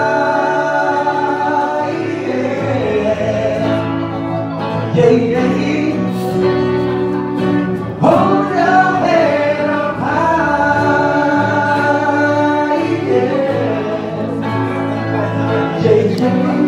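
Live band playing a song: men singing into microphones over acoustic guitar, with sustained sung notes and steady low notes underneath throughout.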